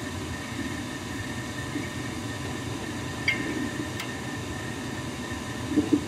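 Gas furnace running with a steady low rushing noise while its Honeywell smart valve retries ignition. There are two short clicks about three and four seconds in, the click of the hot surface igniter being switched on for the pilot.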